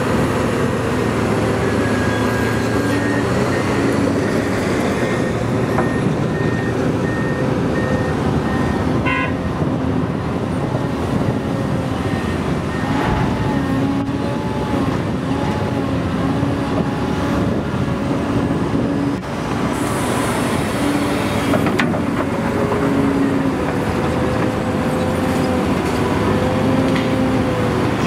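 Komatsu PC800LC hydraulic excavator's diesel engine and hydraulics working under load through a full dig, swing and dump cycle with its 7.5 m³ bucket, the engine note rising and falling as the loads change.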